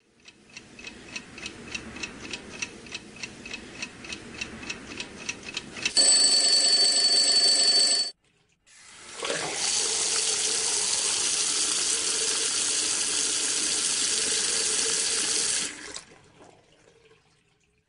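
A clock ticking about four times a second, then an alarm clock bell ringing loudly for about two seconds and cutting off. After a brief pause, water runs from a tap and splashes into cupped hands, steady for about seven seconds before fading away.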